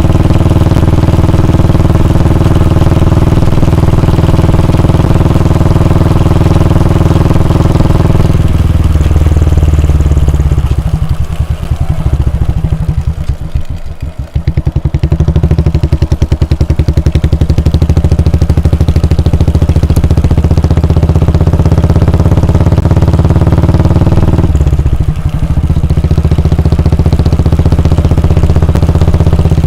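Royal Enfield Bullet 350's 349 cc air-cooled single-cylinder engine running while riding. About a third of the way in the engine eases off and slows, and its separate exhaust thumps come through for several seconds before it pulls steadily again. A short dip follows near the end.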